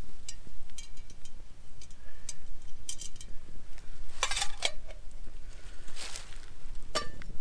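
Small wood fire of twigs crackling and popping in a folding steel Bushbox stove, with a few sharper metallic clinks of a steel cook pot, the loudest about four seconds in and near the end.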